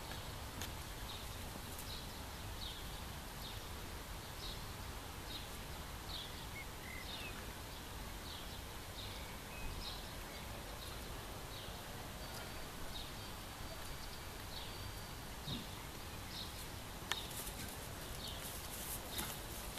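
A bird calling over and over with short, high, falling chirps, about one a second, above a steady background hiss; a few sharp clicks near the end.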